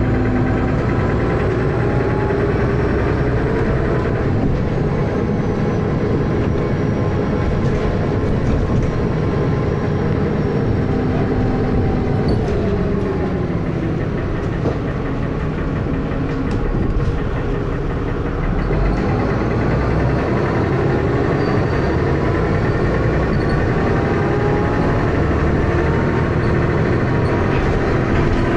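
Dennis Arrow double-decker bus engine running hard with heavy thrash, its note dropping around the middle and climbing again later. The engine has a loud knocking noise.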